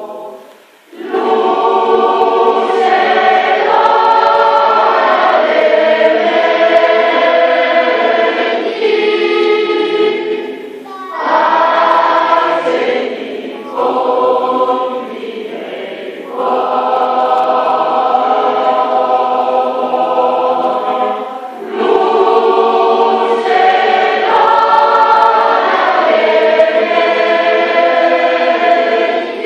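A large combined choir of children and adults singing together in long sung phrases, with brief pauses for breath between them.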